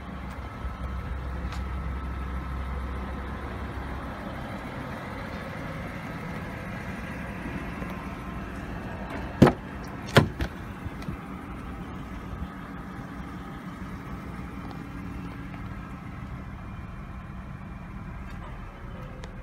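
Rear door of a BMW E39 5 Series saloon being opened: two sharp clicks from the latch and handle, less than a second apart, about halfway through. A steady low rumble runs underneath.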